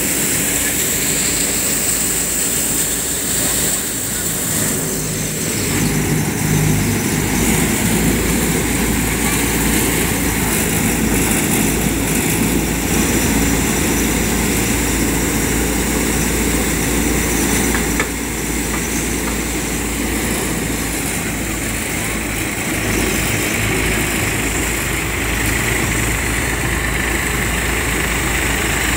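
Samrat threshing machine running steadily while green mustard plants are fed in and threshed, its drum and blower making a continuous mechanical noise over the drone of the tractor engine that drives it.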